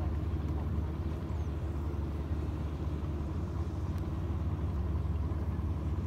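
Engine of a rice combine harvester running steadily, a continuous low hum.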